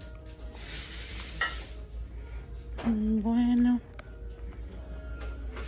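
Shop-floor ambience: faint in-store background music over a steady low hum, with a brief rustling noise about a second in.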